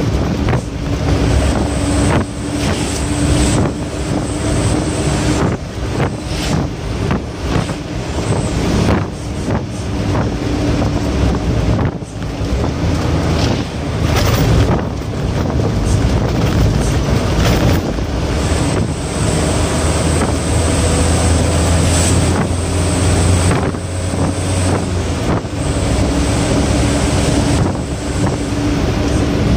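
Cargo truck's engine running hard at speed, heard from inside the cab along with wind and road noise. The engine note shifts in pitch several times, and short knocks and rattles come through often.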